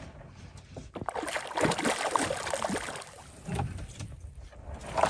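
A hooked brown trout thrashing and splashing at the surface. A burst of splashing starts about a second in, with smaller splashes after it and again near the end.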